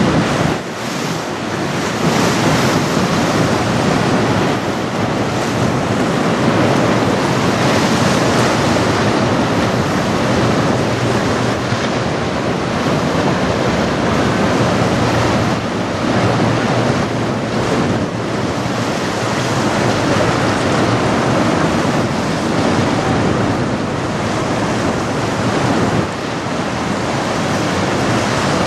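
Strong wind buffeting the microphone over the rush of choppy water: a steady, loud roar of noise that swells and eases in gusts.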